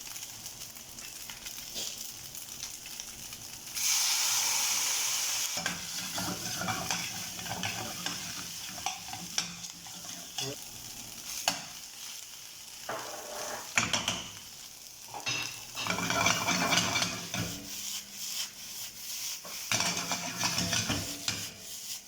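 Rice frying in a hot pan: a steady sizzle, with a spatula scraping and clicking against the pan as it is stirred. A loud hiss of sizzling surges about four seconds in and lasts a second and a half.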